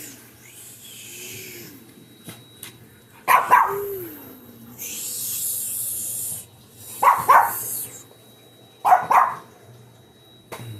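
A dog barking: about five sharp barks in three groups, one and then two pairs. Between them come two stretches of high hissing noise.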